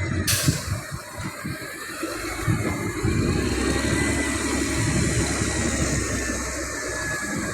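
Heavy machinery's diesel engine running, with a thin high whine that drifts slowly in pitch.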